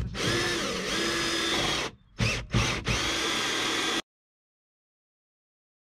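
Einhell cordless drill turning a hole saw through the van floor. It runs steadily for about two seconds, stops, gives two short bursts, runs again, then cuts off suddenly about four seconds in.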